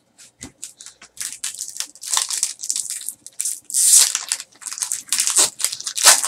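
Foil trading-card pack wrapper being torn open and crumpled by hand: a run of irregular crackles and rips.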